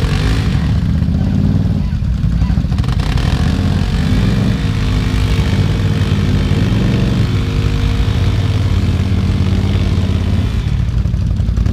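ATV engine running steadily under way, a loud low rumble with a steady pitch.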